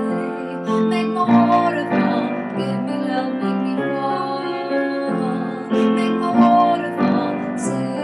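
Piano played in sustained chords that change about every second, with a woman singing along.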